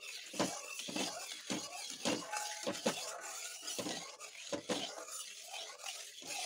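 A spatula scraping and knocking against the inside of a steel kadai in irregular strokes, one or two a second, stirring milk heated in ghee. A steady hiss from the hot pan runs underneath as the milk comes to the boil.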